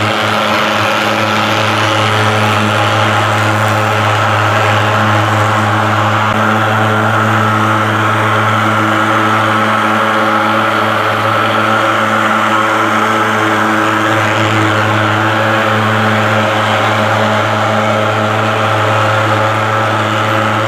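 Portable thermal fogging machine's pulse-jet engine running while it puts out insecticide fog: a loud, steady, unchanging drone.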